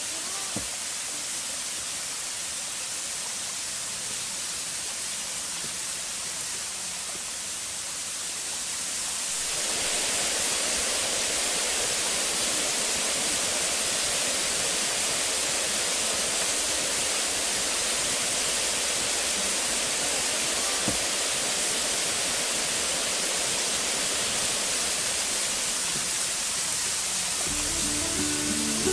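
Steady rush of falling water from a waterfall, growing louder and fuller about a third of the way in.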